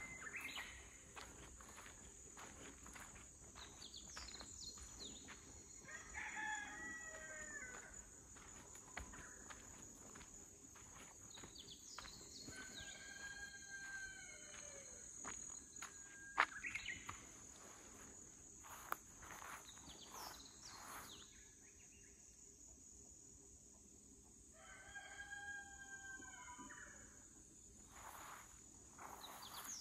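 A rooster crowing three times, each crow about two seconds long, over a steady high insect drone and scattered footsteps.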